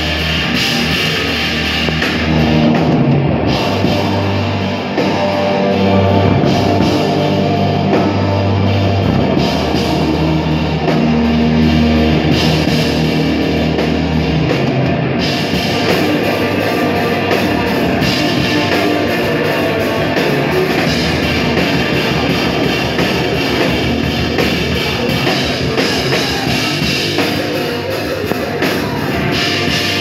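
A live hardcore band playing loud: drum kit with distorted guitar and bass, heavy held low notes underneath. The cymbals come in brighter about halfway through.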